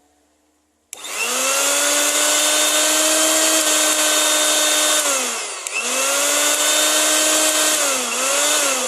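Mixer-grinder motor switched on about a second in and running at high speed with a steady whine over a loud hiss. Its pitch sags and it nearly stops about midway before picking back up to speed, dips again briefly near the end, then winds down.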